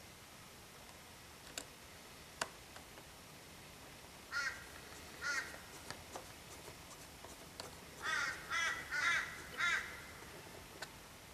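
A bird cawing: two harsh calls about four and five seconds in, then four in quick succession. Before them come two sharp clicks.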